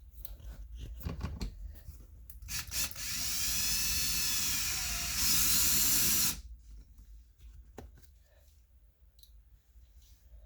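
Power drill/driver running for about three and a half seconds while driving a speaker mounting screw; its whine wavers, jumps higher near the end, then cuts off. A few light knocks of handling come before it.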